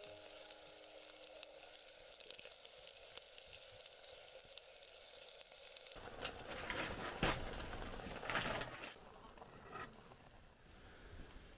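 Chopped vegetables frying with a faint, steady sizzle in a pot on a Trangia stove as they are stirred with a spatula. About six seconds in the sound changes, with a few sharp knocks, and it grows quieter near the end.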